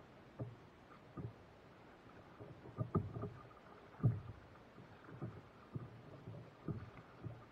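Lake water slapping against the hull of an inflatable stand-up paddleboard as it is paddled along: dull, uneven knocks about once a second over a faint wash of water.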